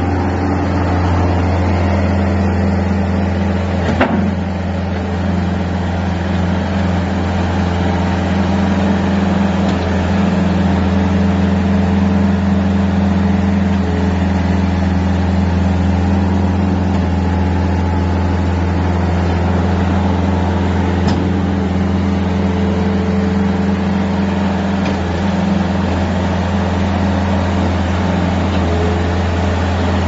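Compact skid steer loader's engine running steadily, with a sharp knock about four seconds in.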